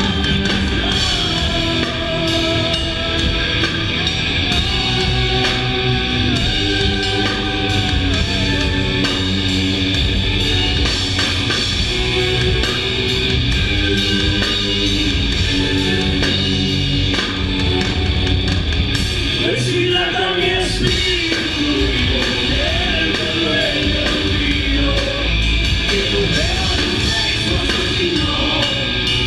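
Live rock band playing: drum kit, electric guitar and bass, with a voice singing over them.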